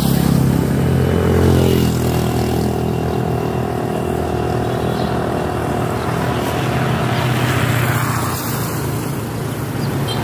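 An engine running steadily close by, its note shifting once about two seconds in, over a steady hiss.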